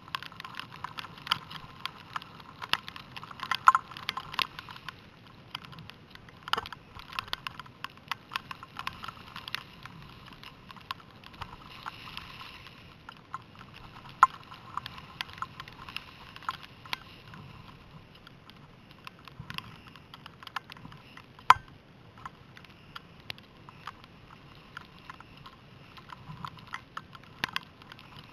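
Skiing noise picked up by a helmet camera: a steady hiss of skis on snow and wind, with frequent sharp clicks and knocks and one loud crack about two-thirds of the way through.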